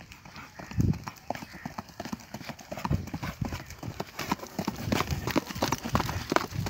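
A chal-trained horse's hooves beating on a dirt track in a quick, high-stepping gait, the hoofbeats growing louder as the horse comes close. A brief low thump about a second in.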